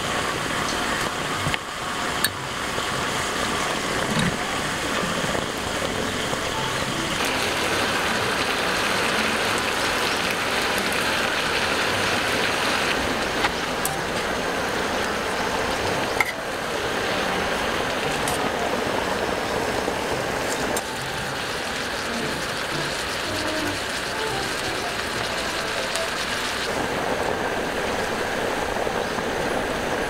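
Marinated meat sizzling steadily in a hot pan on a portable gas stove, with a few sharp clicks of a utensil against the pan.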